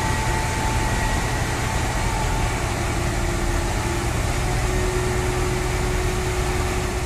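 A heavy engine idling steadily, with a low rumble and a faint steady whine over it.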